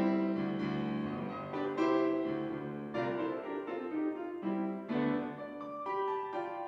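Solo piano playing a slow piece of held chords, with a new chord struck every second or so: the postlude closing the service.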